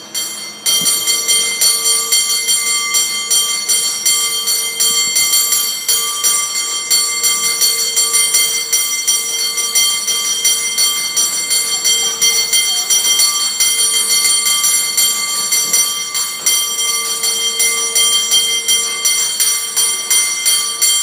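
Cable car bell rung by hand in a fast, continuous rhythmic routine: quick strikes over a steady ring, starting about half a second in.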